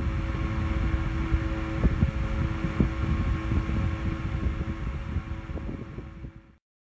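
Antique Westinghouse brass-bladed desk fan running: a steady motor hum over a rush of air, with scattered light ticks, fading out near the end.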